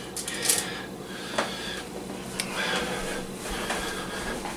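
Chicken nuggets being set down on a foil-lined pan while a plastic container is handled: a few light taps and soft foil rustles, over a low steady hum.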